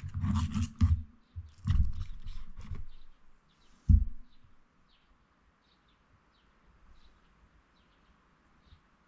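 Table knife and fork cutting through a hamburg steak on a plate, metal scraping and clinking on the plate in two spells over the first three seconds, then one sharp clink about four seconds in. Faint short bird chirps repeat in the background.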